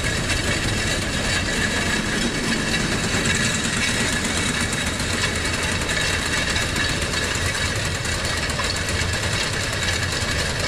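New Holland TT4.65 tractor engine running steadily while the freshly repaired Özduman seed drill is run for a final check. No tak-tak knocking from the drill's gears is heard: the new seed-box gear and bearing mesh properly.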